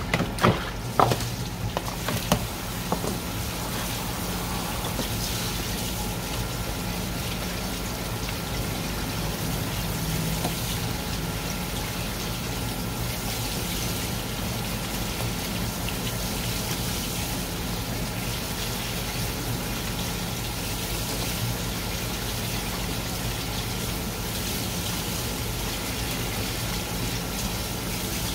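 Tap water running steadily. There are a few sharp knocks in the first couple of seconds and a steady low hum underneath.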